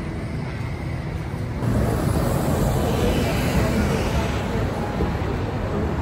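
City street traffic noise: a steady wash of passing cars at a downtown intersection, jumping abruptly louder about a second and a half in.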